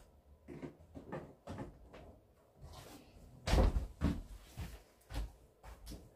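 Refrigerator door opened and shut while a mayonnaise jar and a package of ham are set inside: a string of light knocks and clatters, the loudest about three and a half seconds in.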